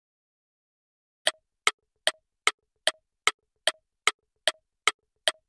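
Countdown-timer ticking, a clock-tick sound effect: about eleven sharp ticks at roughly two and a half a second, starting about a second in.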